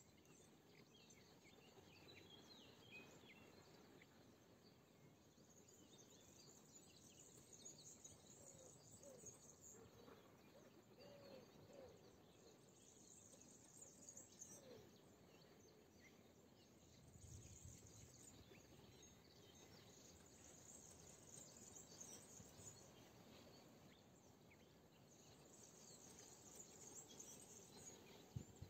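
Faint natural ambience of Mediterranean scrubland in spring: small birds chirping here and there, with an insect's high buzz coming and going in stretches of a few seconds.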